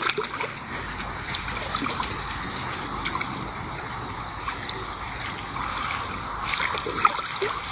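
Water splashing and sloshing around a fishing keepnet as it is handled in a river while the catch is counted out of it, over a steady rush of flowing water.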